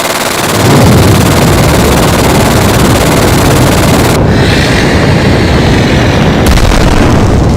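A loud, continuous barrage of gunfire sound effects, machine-gun fire with booms, growing heavier and deeper about a second in.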